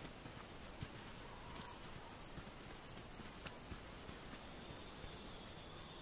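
Crickets chirping at night in a steady, fast-pulsing high trill; a second, fainter insect note joins near the end.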